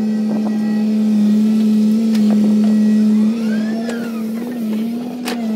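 Komatsu PC200 hydraulic excavator's diesel engine running steadily under working load, with a short whine rising and falling near the middle. A few metallic knocks and clanks from the arm and bucket, the loudest one near the end.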